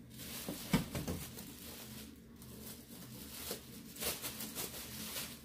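Clear plastic wrapping and cardboard packing rustling and crinkling as an item is pulled out of a box and handled, with a soft knock under a second in and a burst of crinkling about four seconds in.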